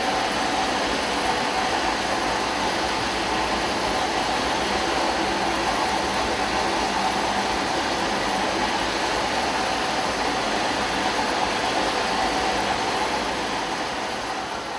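Small narrow-gauge steam locomotive standing with steam up, giving a steady hiss with a faint tone running through it, easing off slightly near the end.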